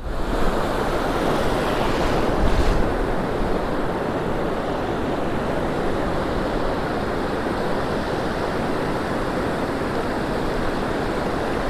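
Surf breaking and washing up the beach in a steady rush, with wind on the microphone.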